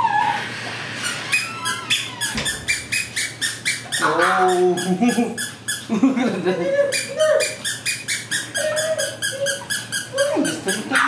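A group of puppies yipping in quick short high-pitched yaps, several a second, with a few longer whining calls mixed in.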